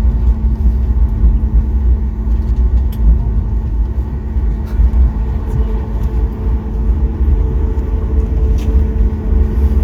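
Cabin noise of a Boeing 737 MAX 8 on the ground just after landing: a loud, steady low rumble with an even engine hum, joined by a second, higher hum about halfway through.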